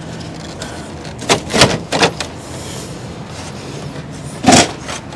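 Hands working at a pickup truck's plastic-and-chrome front grille, making a few short knocks and scrapes, with the loudest one about four and a half seconds in.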